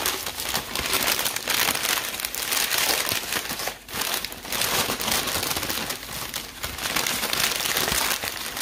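Brown paper lunch bag being folded over and crumpled by hand: a continuous dry crinkling and rustling of paper, with a brief pause about four seconds in.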